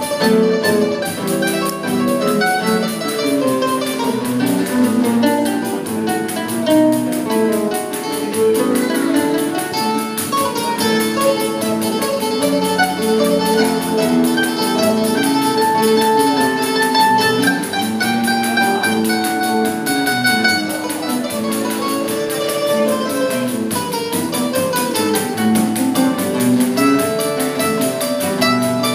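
Live choro on acoustic guitar, a small plucked lead instrument and a pandeiro: a quick plucked melody over guitar accompaniment, with no voices.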